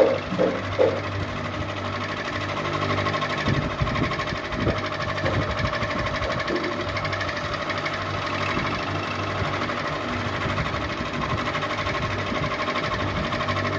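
Ceiling fan running with a fast, even mechanical rattle and a steady hum, with two sharper knocks in the first second.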